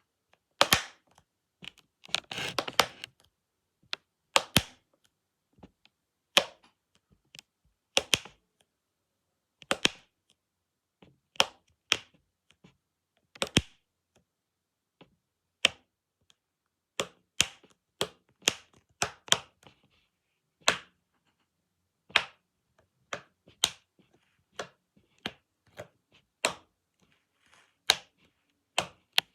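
Sharp, crisp clicks, one at a time, every second or two, with a quick flurry of several about two seconds in.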